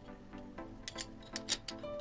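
Background music with several sharp metal clicks and clinks about halfway through, as a steel bar and a hex key are handled against a lathe's three-jaw chuck.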